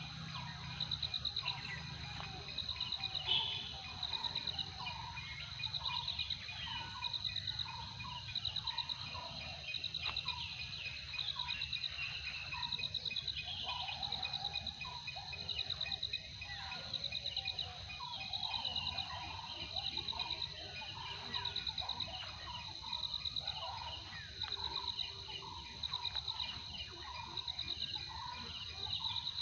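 Insects trilling in short, high, pulsed bursts that repeat a little over a second apart, with birds calling and chirping among them.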